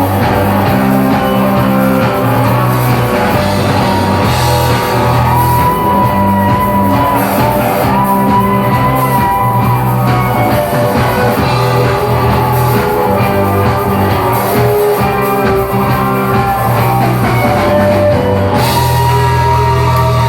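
Rock music played by a band: guitar with held notes over bass and drums.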